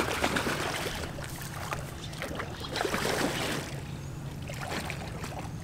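A hooked peacock bass thrashing and splashing at the water's surface while being fought on the line, in several bursts of splashing.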